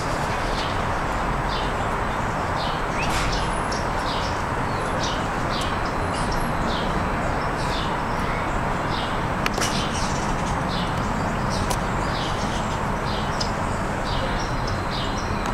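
Steady outdoor background noise with small birds chirping in short, repeated calls throughout.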